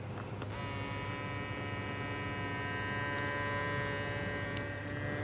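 Neutronics refrigerant identifier running its calibration: a steady electric hum with several pitches at once, starting about half a second in.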